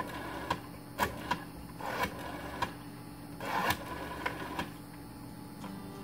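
Rotary dial of a 1981 Northern Telecom 500 telephone being turned and let go as a number is dialed, giving a string of irregular clicks and short mechanical rattles. The clicking dies away after about four and a half seconds.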